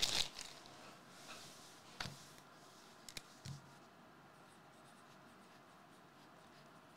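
Marker pen writing on a slip of paper, a faint scratching. A brief rustle of handling comes at the very start, and a few small knocks follow over the next few seconds.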